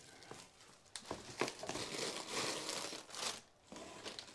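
Bubble wrap and plastic packaging crinkling and rustling as packed parts are handled in a cardboard box, with a few light knocks.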